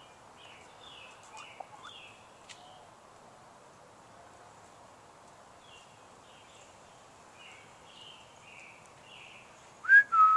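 Faint songbird chirping in short repeated phrases over quiet outdoor background. Near the end, a loud human whistle rises sharply and then holds a steady note, calling a cat.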